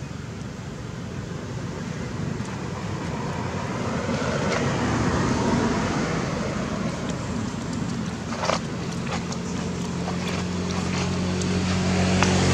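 A motor vehicle engine running and coming closer, its steady hum growing louder toward the end, over a rushing outdoor noise. A few sharp clicks a little past the middle.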